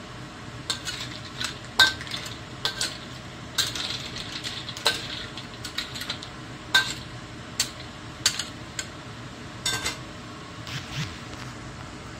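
Metal spatula stirring clams in a wok of hot water: irregular sharp clinks and scrapes of metal against the wok and the clam shells, some with a brief ring. They stop about a second before the end, leaving a steady low hiss.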